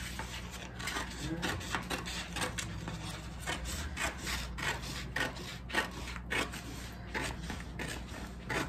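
Scissors snipping through a sheet of dry-erase contact paper, a run of short cuts at about two to three snips a second.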